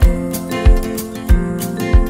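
Music with strummed guitar over a steady, strong bass beat, about three beats every two seconds.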